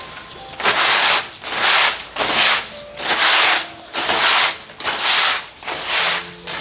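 Long straw broom sweeping a concrete floor in steady strokes: about eight brisk swishes, a little more than one a second.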